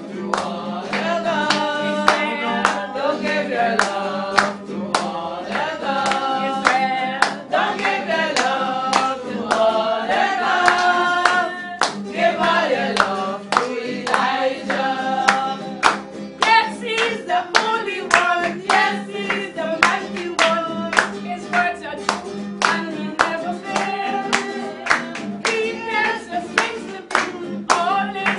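A group singing together in church, a woman's voice in front, with hand-clapping in a steady beat that grows stronger and denser in the second half.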